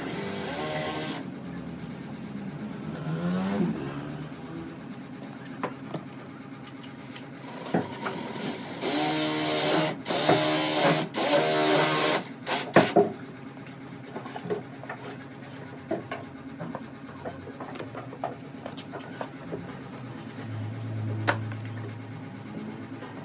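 A small electric power tool's motor running in short bursts, its pitch rising and falling as it spins up and down, with scattered knocks and taps in between.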